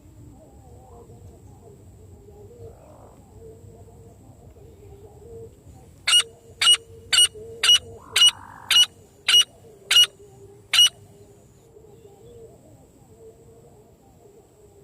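Francolin (teetar) calling: a run of about nine short, sharp, ringing notes, roughly two a second, starting about six seconds in and stopping about five seconds later.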